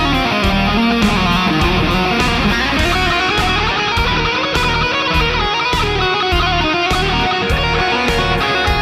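Electric guitar played through a Mooer GE150 multi-effects processor on preset P073, a melodic line over a steady drum beat.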